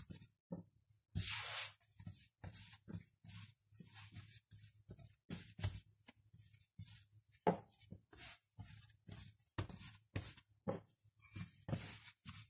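Hands kneading soft yeast bread dough on a floured wooden tabletop: a run of irregular soft pats and presses, roughly one to two a second, with a brief rubbing hiss about a second in.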